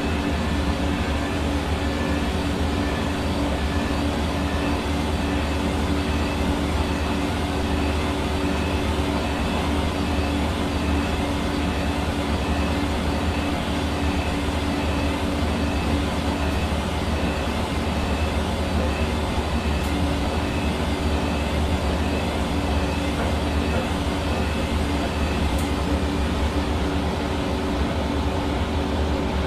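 Hair dryer running steadily: a constant rush of air over a low motor hum.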